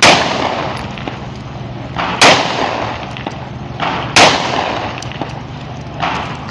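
9mm Beretta 92A1-pattern pistol being test-fired: three loud shots about two seconds apart, each ringing on briefly, with fainter sharp bangs between them.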